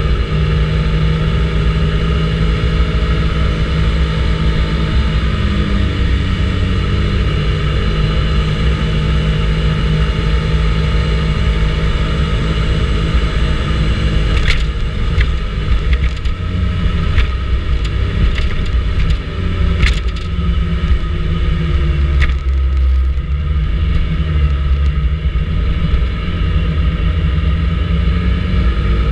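Vespa GTS 300 ie scooter's single-cylinder four-stroke engine running under way, its pitch rising and falling with the throttle over a strong low rumble. A few sharp clicks come in the middle.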